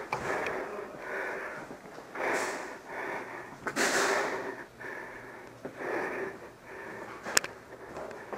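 A person's breathing heard close up, in slow noisy swells a second or two apart, with a single sharp click near the end.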